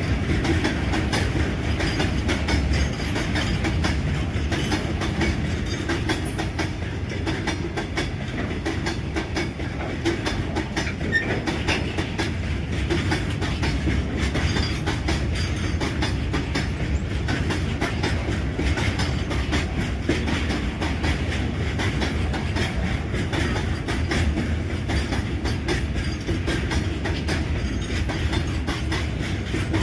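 Train running along the track: a steady rumble of wheels on rail with a quick clickety-clack of wheels passing over rail joints.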